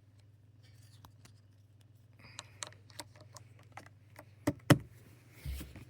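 Scattered light clicks and handling knocks as a power plug is fitted back into a wall outlet, with two sharper clacks about four and a half seconds in and a dull thump near the end, over a steady low hum.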